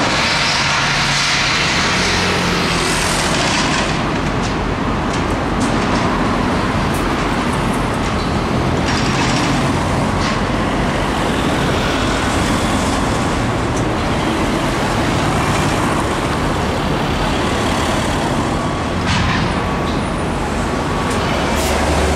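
Steady road traffic noise with a few faint knocks.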